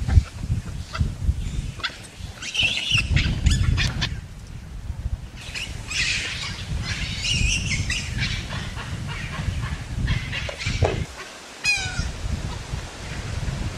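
Wind buffeting the microphone in low, gusty rumbles, with scattered high-pitched squeals and chirps from animals and one falling call near the end.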